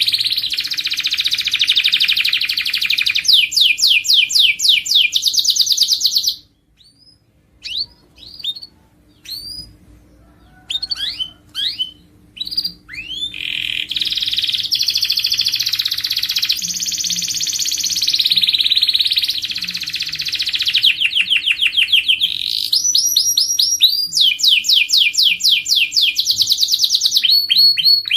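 Domestic canary singing long rolling trills and fast runs of repeated notes. About six seconds in, the song breaks off into a few scattered chirps, and full song resumes about thirteen seconds in.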